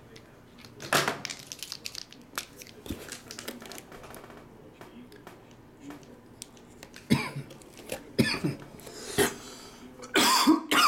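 Rustling and light knocks of sealed cardboard boxes being handled, then a man coughs several times in the last few seconds, the final cough the loudest; he has a tickle in his throat.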